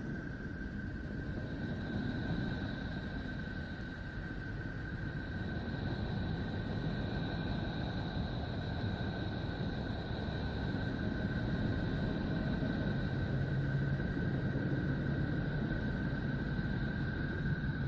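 A 'planet sound' space sonification: a steady low rumbling drone with two thin held high tones above it, slowly growing louder.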